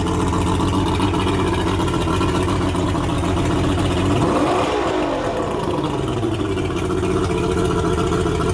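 Mercury 135 hp V6 two-stroke outboard running on a garden-hose water supply after an impeller replacement. It idles steadily, with one brief rev up and back down about halfway through.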